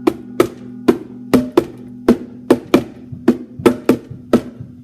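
Bongo drums struck by hand, about a dozen sharp hits in an uneven rhythm, over a low chord left ringing underneath.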